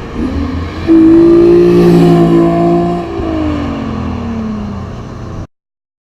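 Infiniti G37's V6, uncatalysed through test pipes, revving hard: the note rises, holds high and steady for about two seconds, then falls in pitch as the car goes by. The sound cuts off abruptly near the end.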